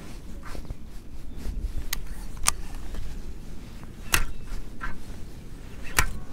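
Low rumble of wind on the microphone, with four sharp clicks from a baitcasting rod and reel being handled, spread over several seconds.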